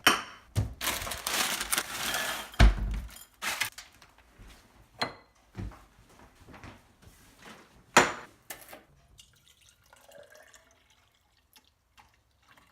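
Something poured into a bowl for about two seconds, then a heavy knock and several sharp clinks and knocks of dishes, fading to faint handling sounds.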